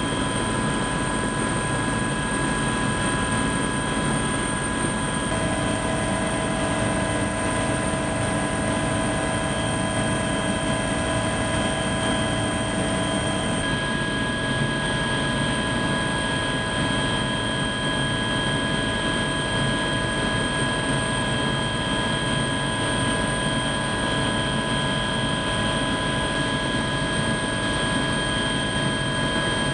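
Helicopter engine and rotor noise heard from inside the cabin: a steady, loud rush with several steady whining tones. The mix of tones changes slightly about halfway through.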